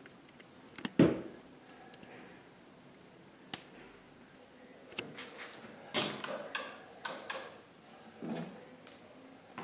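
Sharp knocks and clicks in a small room: one loud thump about a second in, then a run of quick knocks and clicks in the second half.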